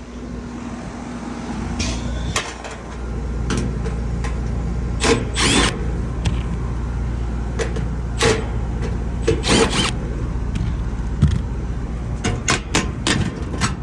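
Goodman package heat pump running with its compressor on after a new capacitor was fitted: a steady low hum, with scattered clicks and knocks over it.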